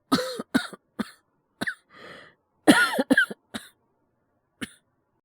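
Acted coughing fit from a voice actor playing someone with a cold: a quick run of about four harsh coughs, a breath drawn in, then another run of coughs ending with one last single cough.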